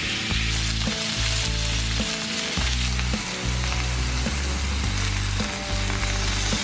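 Beef steaks searing in a cast-iron grill pan with a steady sizzle, under background music with a bass line.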